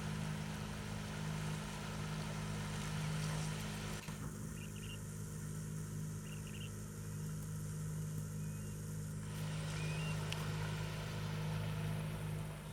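Steady low mechanical hum of a running vehicle, with a constant low drone.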